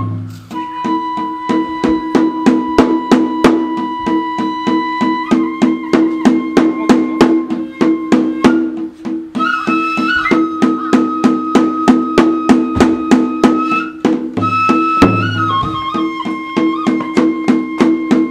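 Kagura festival music: a transverse flute plays long held notes that step from one pitch to another, over a fast, steady beat of drum strokes.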